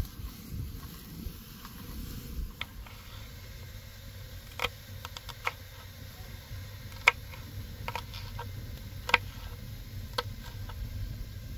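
Kitchen knife chopping a green bell pepper on a wooden cutting board: a dozen or so sharp, irregular taps of the blade on the board, over a low steady rumble.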